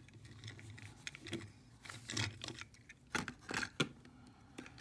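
Small clicks and knocks of die-cast metal toy cars being handled and set down on a table, faint and scattered, with the sharpest clicks about three to four seconds in.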